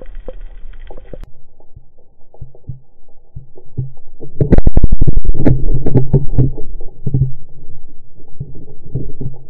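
Band-powered speargun fired underwater: a sudden, very loud clack about four and a half seconds in, followed by a fast rattle of clicks for about two seconds as the shaft and line run out, then scattered knocks. Before the shot, faint clicks and knocks of the gun being handled.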